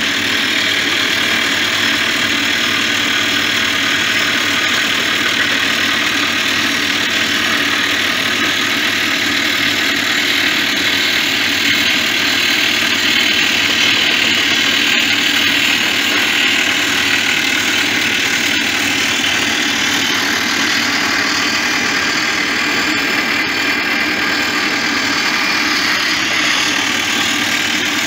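Crawler blast-hole drill rig drilling into rock: a loud, steady, unbroken noise of the rig's engine and percussive drill.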